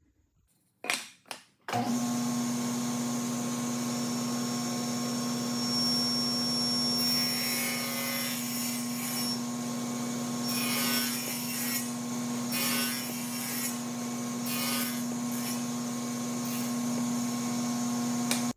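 Power saw running with a steady motor hum, cutting joints in walnut boards in irregular passes that add a hissing cutting noise from about seven seconds in. Two short knocks come about a second in, before the saw sound starts.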